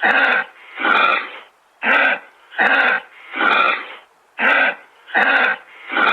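Kangaroo making a run of raspy, breathy huffs in a steady rhythm, about eight in a row, each under half a second long.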